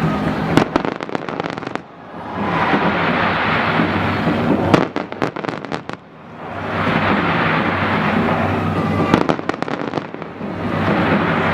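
Aerial fireworks going off in waves of rushing noise, each wave breaking off into a quick run of sharp crackling pops, three times.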